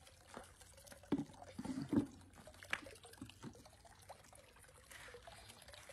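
Hot water poured from an electric kettle in a thin stream into a plastic tub of water, splashing steadily. A few short, louder sounds come between about one and two seconds in.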